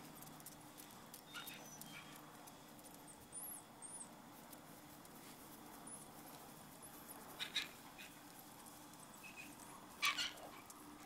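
Shiba Inu and puppies moving about on concrete: faint scattered taps and clicks of paws and claws, with a few brief high squeaks, over a low steady hum. The loudest clicks come twice, late on.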